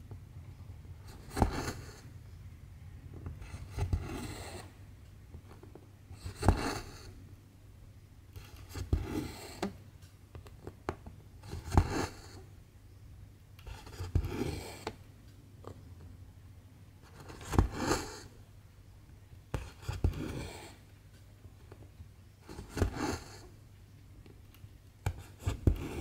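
Cross-stitch needle and silk thread being pulled through 11-count cross-stitch fabric, stitch after stitch. Each stitch is a sharp tick followed by a short raspy swish of thread, about every two and a half seconds.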